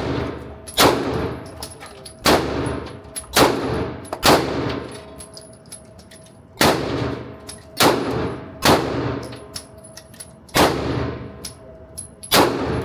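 Pistol fired in a slow string: about nine single shots roughly a second or more apart, with a couple of longer pauses, each shot echoing and fading in the indoor range. Fainter shots from other lanes crack between them.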